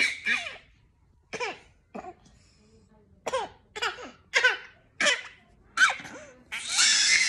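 A baby laughing in short bursts, about nine quick falling-pitched squeals, then near the end breaking into a loud continuous wail.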